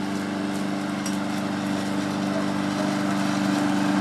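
Lawn mower engine running steadily, a constant drone that grows slightly louder toward the end.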